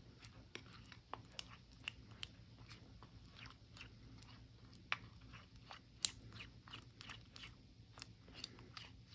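A spoon stirring a thick, stiff gochujang sauce in a small bowl. It makes faint, irregular sticky smacks and clicks, several a second, with a couple of sharper clicks about five and six seconds in.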